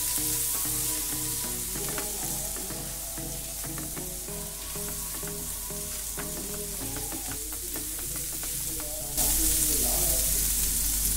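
Oil sizzling as green chilli paste, ginger-garlic paste and spices fry in a non-stick pan, with a silicone spatula stirring and scraping in small clicks. The sizzling gets suddenly louder about nine seconds in, over background music.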